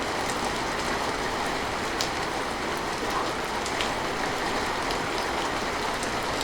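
Steady rain falling, with a few sharp individual drops ticking on a nearby surface now and then.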